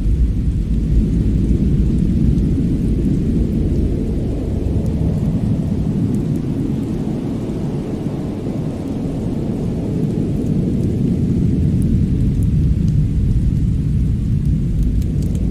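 Snow and fireplace ambience: a steady, deep rumble that swells and eases slowly, with a few faint crackles near the end.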